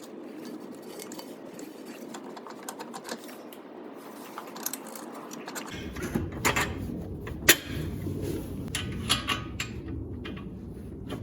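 Metal clicks and clinks of hand tools and bolts as the strut bolts go back into a car's front steering knuckle. The clicking gets busier and louder about halfway through, with one sharp click, over a steady background noise.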